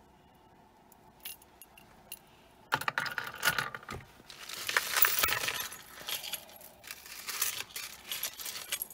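Metal costume jewelry jangling and clinking as pieces are rummaged through and picked out by hand. A few faint clicks come first, then about two and a half seconds in a dense run of jangling begins and keeps going.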